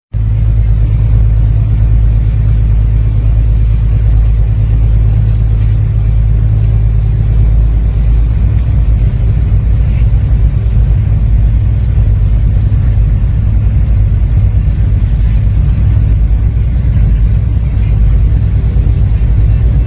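Boat's engine running steadily under way, a loud, even low rumble heard from on board.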